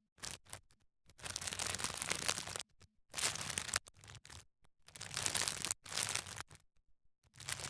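Plastic packaging crinkling as it is handled, in several bursts of a second or so with short silent gaps between.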